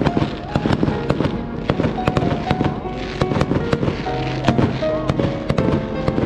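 Fireworks display: a rapid series of sharp bangs and crackles from bursting shells, several a second, with music playing underneath.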